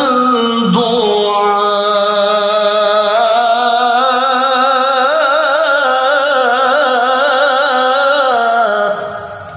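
A man's melodic Qur'an recitation (tilawah), sung into a microphone: one long held note with a fast wavering ornament, which ends about nine seconds in.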